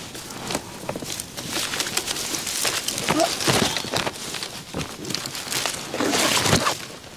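Footsteps and scuffs of a hiker climbing a rocky, dusty trail, with two louder, noisier stretches of scrambling, one about two seconds in and one near the end.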